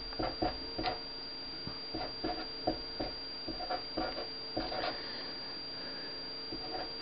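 Felt-tip marker writing on paper: a series of short, irregular scratchy strokes as an equation and its units are written out, thinning out over the last couple of seconds, over a steady faint hum.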